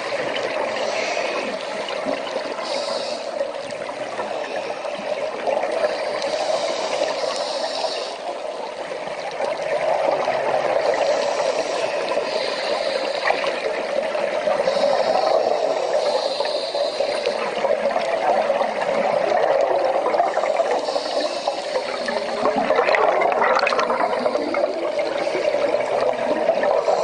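Underwater water noise picked up by a diver's camera: a steady bubbling rush, with short high hisses that come and go every few seconds.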